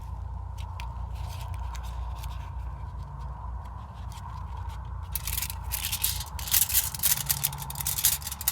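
Intermittent scraping and sharp clicks from handling the partly torn-down AC capacitor, sparse at first and coming thick and fast in the second half, over a steady low background rumble.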